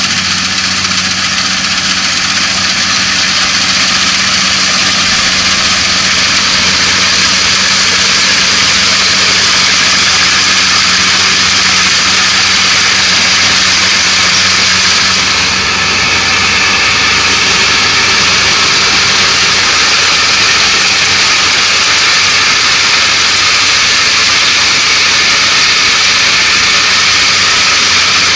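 Kubota ANR460 combine harvester running steadily at close range while harvesting lodged rice: a steady diesel engine hum under the loud, even rush of its cutting and threshing machinery.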